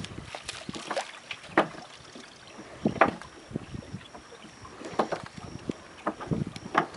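Wet mullet net being hauled hand over hand into a small boat: irregular splashes and knocks every second or so as net, floats and line come over the side.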